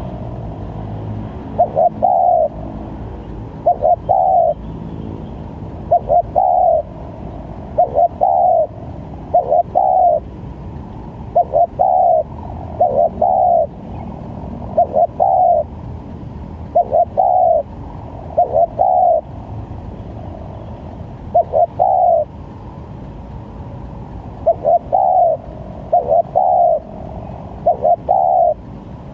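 Spotted dove (tekukur) cooing, used as a lure call for trapping wild doves: short phrases of two or three coos repeated about every two seconds, over steady background noise.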